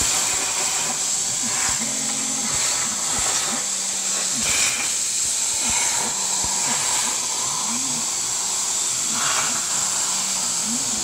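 CNC plasma cutter's torch arc starting abruptly and then hissing steadily as it cuts through sheet steel. Faint low tones glide up and down in pitch as the torch head moves along the curves.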